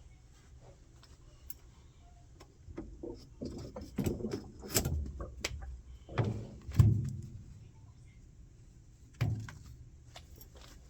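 Handling noise: a run of knocks, clunks and light rattles, loudest in the middle, then one more knock near the end.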